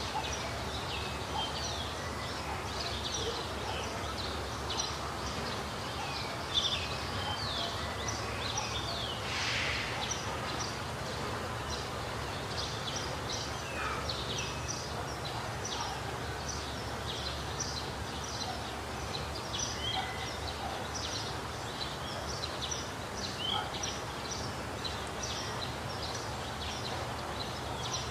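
A chorus of wild birds chirping and calling with many short, quick calls throughout, over a steady low background noise, with one brief click about six seconds in.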